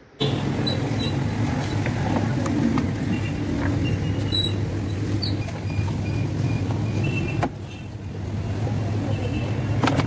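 A steady low mechanical hum, like a running engine, that starts abruptly. Occasional clicks and knocks of dashboard plastic being handled sound over it.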